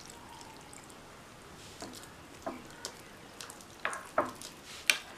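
Water pouring from a spoon into a bowl of flour. From about two seconds in, a metal spoon stirs the wet batter, making short scrapes and clinks against the bowl that grow louder and closer together near the end.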